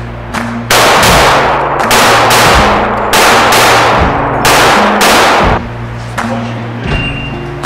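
Gunshots on an indoor range: about six loud shots in the first five seconds, each ringing on in the room. Background music with low held notes runs underneath.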